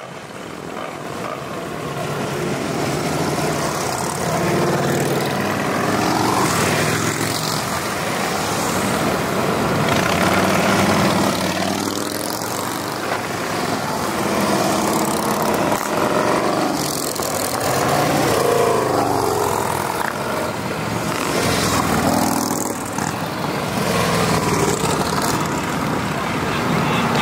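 A stream of large touring motorcycles, mostly Harley-Davidson V-twins, pulling out and riding past one after another. The engine note rises and falls as each bike accelerates by. The sound fades up over the first few seconds.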